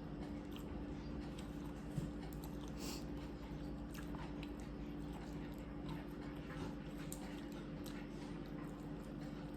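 A person chewing and biting seafood, with small crunches and scattered faint clicks over a steady low hum.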